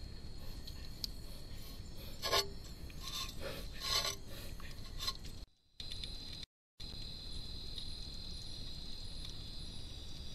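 A Malayan tapir's body brushes against the camera trap at close range, giving a few short scraping and rustling sounds. After a brief dropout, a steady high-pitched drone of night insects carries on.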